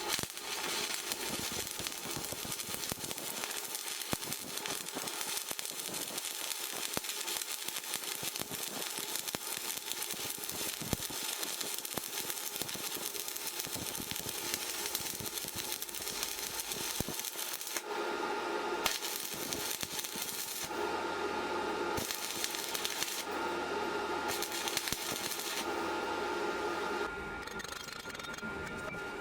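Electric arc welding: the arc crackles and sputters steadily, with a few short breaks in the crackle in the second half.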